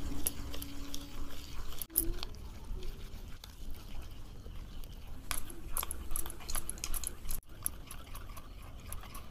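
Wire whisk beating thin pancake batter in a ceramic bowl, its wires clicking against the bowl's side in quick, irregular ticks.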